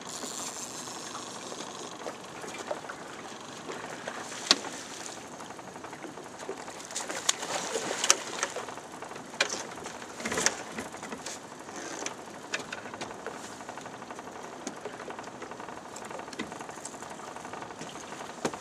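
Scattered knocks and clatter on an aluminum boat's deck as a landed muskie is netted and handled, thickest about halfway through, over a steady hiss.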